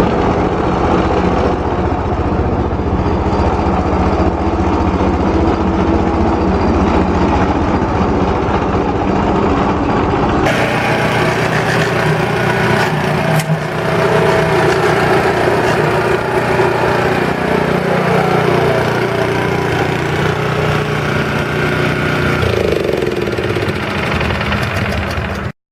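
Honda GX four-stroke engine of a petrol lawn scarifier running steadily. The sound changes abruptly about ten seconds in, and the engine's pitch falls near the end before the sound cuts off suddenly.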